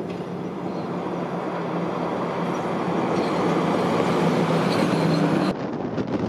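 Heavy-duty tri-axle wrecker tow truck's diesel engine running as it drives past, a steady low hum that grows louder as the truck nears. About five and a half seconds in, the sound cuts suddenly to wind buffeting the microphone with a truck engine farther off.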